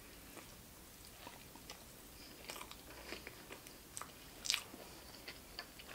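A person chewing a mouthful of hamburger close to the microphone: soft, scattered wet mouth clicks and smacks, the loudest about four and a half seconds in.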